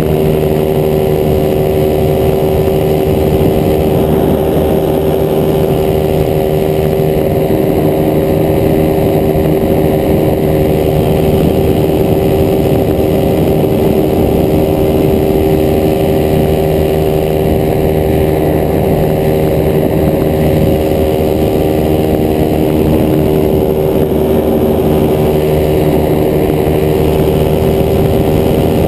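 Top 80 paramotor's two-stroke engine and propeller running at a steady cruise throttle in flight, an even, unchanging engine tone.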